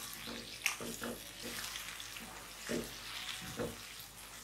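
Chicken in green chutney sizzling in a pan over a gas flame while a wooden spoon stirs it, with a few short knocks and scrapes of the spoon against the pan.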